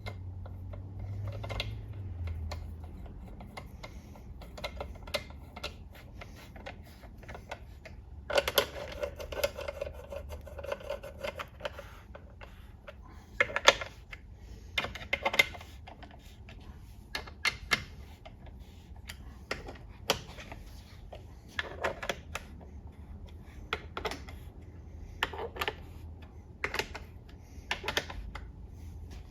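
Hand tools working bolts on a ZF 8HP70 transmission: runs of ratchet clicking, with separate metallic knocks and a short scraping stretch about nine seconds in.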